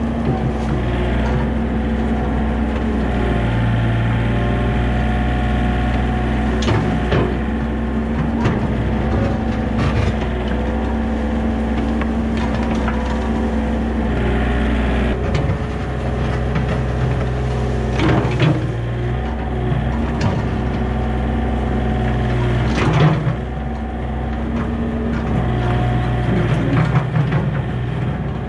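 Yanmar B37 mini excavator's diesel engine running steadily, its note changing as the hydraulics take load, while the grading bucket scoops and scrapes through dead leaves and dirt. Several sharp clanks and knocks come from the bucket and linkage, the loudest about two-thirds of the way through.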